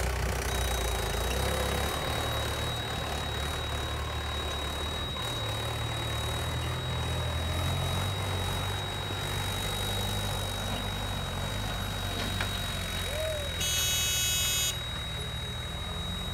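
Diesel engines of a JCB 3DX backhoe loader and a Mahindra Yuvo tractor running steadily at work, the pitch shifting a little as the backhoe digs. A thin, steady high whine runs over them, and a brief high-pitched tone of about a second sounds a couple of seconds before the end.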